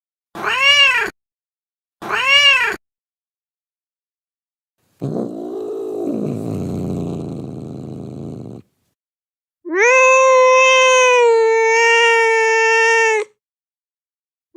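Agitated domestic cats in a series of separate calls: two short, sharp meows, then a rough, low, noisy cry lasting about three and a half seconds, then a long, steady yowl held for about three and a half seconds near the end.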